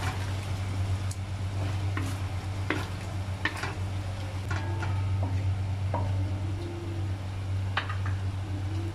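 Wooden spatula stirring chicken pieces in sizzling tomato sauce in a stainless steel pan, with scattered knocks and scrapes of the spatula against the pan. A steady low hum runs underneath.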